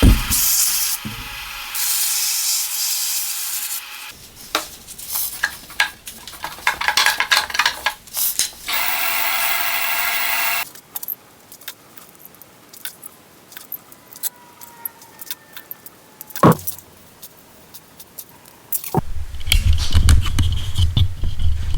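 Workshop sounds of making a wooden pen: two stretches of steady hissing, scraping and rubbing with scattered small clicks in between, a single sharp knock, and a low hum with more noise starting near the end.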